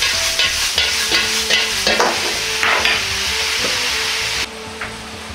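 Metal ladle scraping and clanking against a wok as a minced-pork and vegetable stir-fry is tossed over a gas flame, sizzling hard in the final toss after the sesame oil goes in. About four and a half seconds in, the sizzling drops away suddenly to a quieter hiss.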